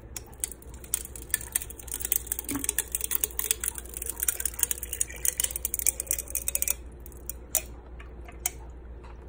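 Water poured from a plastic bottle into a stainless-steel Hydro Flask: a dense crackling splash patter that thins out to a few scattered drips after about seven seconds.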